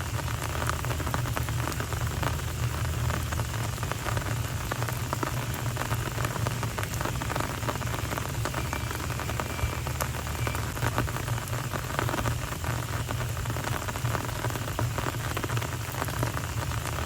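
Steady rain falling on a street's paved surface, a dense patter of drops with a low hum underneath.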